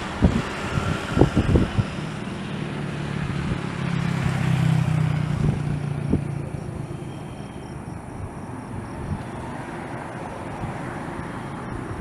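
Engine noise passing by: a low hum that swells about four seconds in and fades away, over a steady outdoor rumble.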